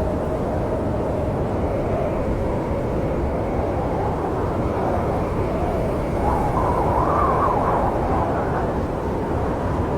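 Snowstorm wind blowing with a steady low rumble and a wavering howl that swells and rises in pitch about six seconds in.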